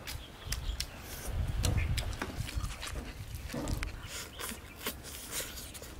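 Close-up eating sounds: wet smacking and chewing as meat is bitten and gnawed off a sauce-covered spicy rib, with many short lip smacks.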